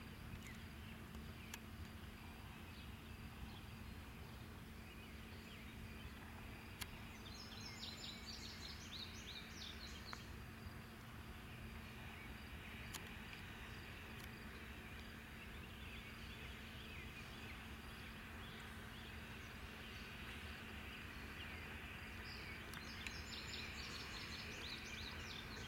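Faint, steady low rumble of Strasburg Railroad No. 90, a 2-10-0 steam locomotive, approaching slowly and growing a little louder near the end. A small bird sings briefly twice, about eight seconds in and again near the end.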